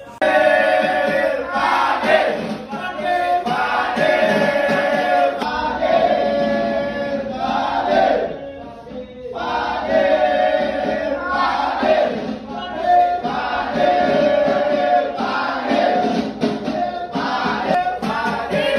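A group of voices singing and chanting together in unison, in phrases of a few seconds each with a brief lull about eight seconds in.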